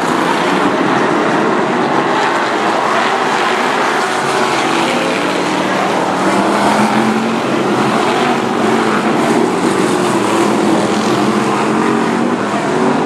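A pack of BriSCA F1 stock cars' V8 engines running together in a loud, continuous drone as the field comes round in formation for the rolling start.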